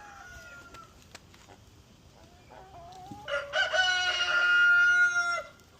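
Rooster crowing: the end of one crow trails off in the first second, then a second full crow starts about three seconds in, climbing into a long held note that cuts off sharply.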